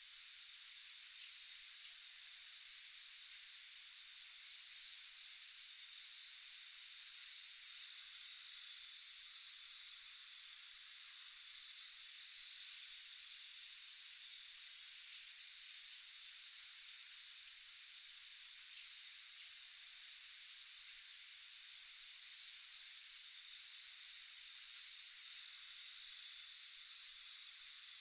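Crickets chirping in one continuous, finely pulsing high-pitched trill that never breaks.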